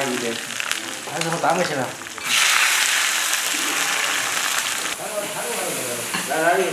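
Hot oil ladled over dried chillies and garlic on a basin of fish, sizzling loudly for about three seconds starting a couple of seconds in. Voices talk before and after the sizzle.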